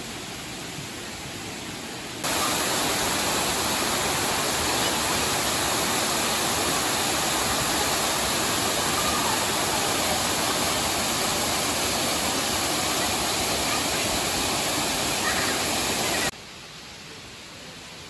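Small waterfall cascading over limestone ledges: a steady, loud rush of water that starts abruptly about two seconds in and cuts off abruptly near the end, with a softer, even water sound before and after.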